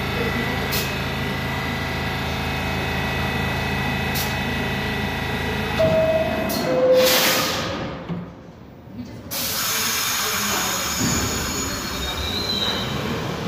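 New York City Subway train standing at the platform, its equipment humming steadily. About six seconds in, a falling two-tone door chime sounds, followed by a loud burst of hiss as the doors close.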